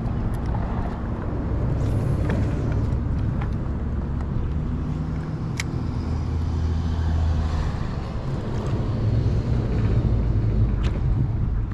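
Low, steady engine rumble with a few light clicks over it.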